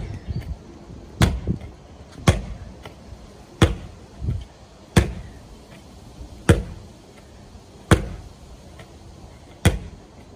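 Medicine ball slammed down onto a wooden deck and bounced to a partner again and again: about eight sharp smacks, one every second and a half or so, some followed by a softer thud as the ball is caught.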